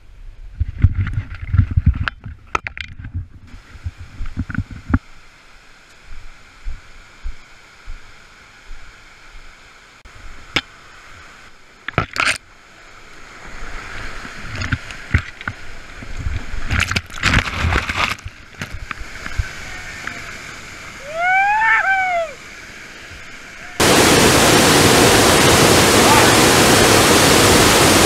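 Knocks and thumps of a handheld camera being carried, with a faint rush of rapids, then near the end the loud, steady roar of a waterfall in high flow cuts in suddenly.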